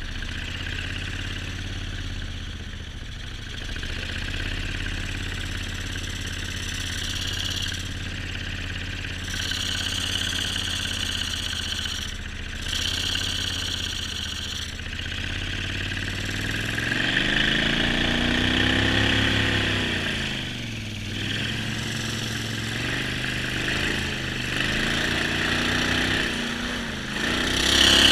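Jon boat's mud motor running at a steady speed, then revved up and eased off several times in the second half, with the rush of water and wind throughout. The engine is loudest near the end, at full throttle and throwing spray.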